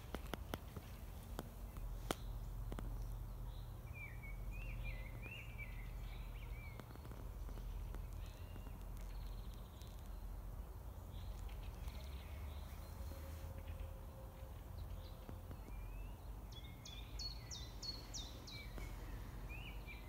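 Songbirds singing in short warbling phrases, once a few seconds in and again near the end with quick sharp high notes, over a steady low rumble.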